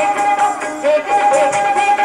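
Indian classical dance music: a long held melody note with gliding phrases around it, over steady jingling percussion.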